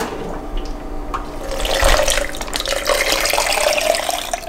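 Water pouring into a plastic container, its pitch rising slightly as it fills.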